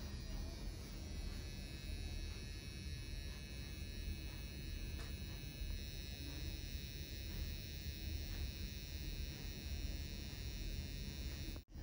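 Rotary permanent-makeup tattoo pen buzzing steadily as it tattoos an eyebrow. It cuts out briefly near the end.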